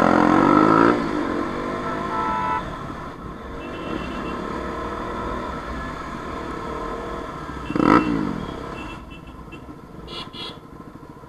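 Motorcycle engines and exhausts in moving traffic: a loud rev-up at the start and a sharp rev blip about eight seconds in. Short horn toots sound around two seconds in and again near the end.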